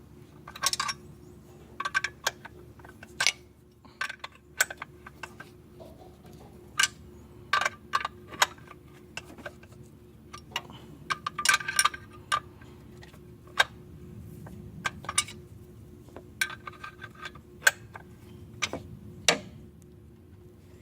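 Hand wrench clinking and clicking on the alternator's mounting bolts. Irregular sharp metallic clicks, some ringing briefly, over a faint steady hum.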